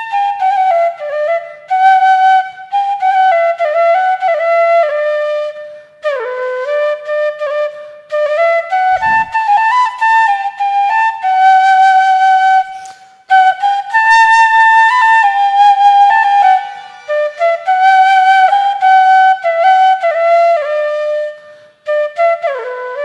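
Background music: a solo flute playing a slow melody with sliding, bending notes, in phrases broken by short pauses.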